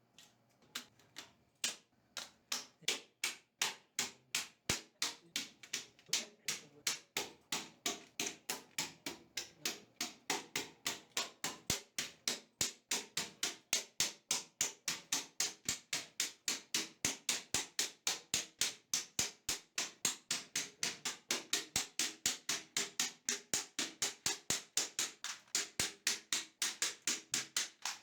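Computer keyboard keys clicking one after another at a steady rate of about three a second.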